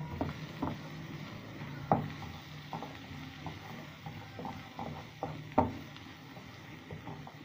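A spatula stirring sliced carrots, green peppers and onion in a non-stick frying pan, with irregular light knocks and scrapes against the pan, two sharper knocks about two seconds and five and a half seconds in. A faint sizzle of the vegetables frying underneath.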